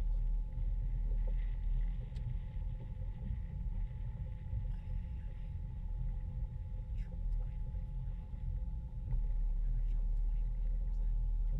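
Motorboat engine running at slow speed: a steady low rumble with two faint, steady hum tones above it.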